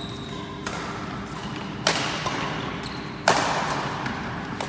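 Badminton doubles rally: rackets strike the shuttlecock with sharp, echoing cracks, two loud hits coming about a second and a half apart. Between the hits, shoes squeak briefly on the wooden court floor.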